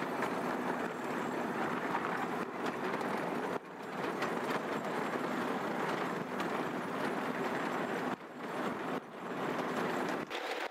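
Miniature 12-inch gauge ride train rolling along its track: a steady rattling rumble with wind noise, briefly dropping about three and a half seconds in.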